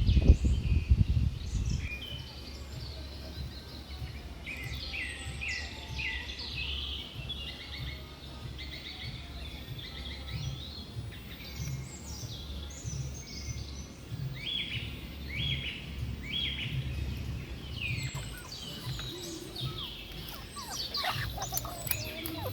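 Small birds chirping and calling repeatedly over a steady low rumble, which is louder for the first couple of seconds.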